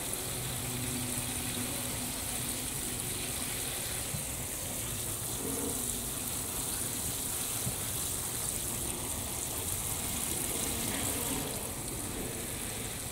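Water showering from the rose of a metal watering can onto soil and squash leaves: a steady spattering hiss.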